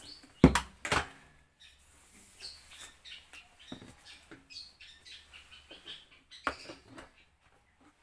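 Hard plastic knocks and clatter as a wet/dry vacuum cleaner's hose and fittings are handled and attached; the motor is not running. Two sharp knocks about half a second apart near the start are the loudest, followed by faint scattered clicks and another knock about six and a half seconds in.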